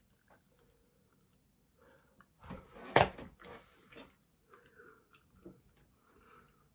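Close-miked chewing and biting of sushi: soft, irregular mouth sounds. There is a sharp, loud click about three seconds in.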